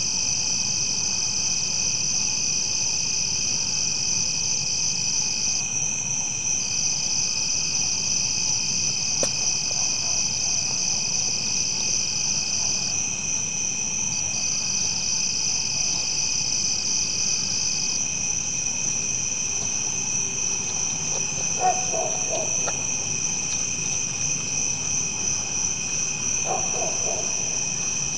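Insect chorus: several insects trilling steadily at different pitches, one of the higher voices dropping out briefly a few times.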